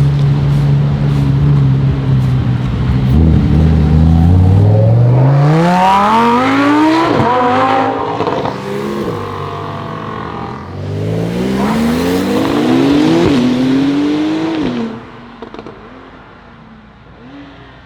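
Lamborghini V10 engine running low and steady, then accelerating hard: the revs climb steeply twice, with sudden drops at the gear changes, before the sound falls away near the end.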